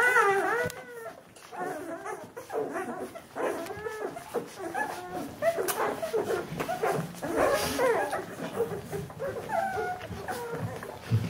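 A litter of two-week-old Bernese Mountain Dog puppies squeaking and whimpering as they nurse, many short high calls overlapping one another.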